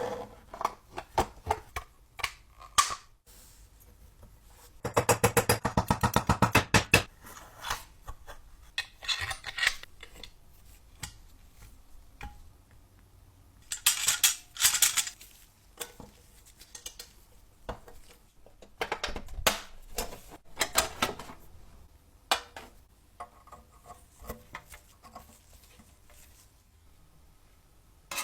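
Small metal parts and hand tools clinking and clattering in bench work, with a fast, even run of ticks lasting about two seconds.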